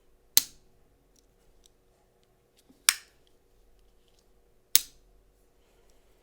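Three sharp clicks about two seconds apart from a Spyderco Delica folding knife as its blade is worked and its back lock snaps into place.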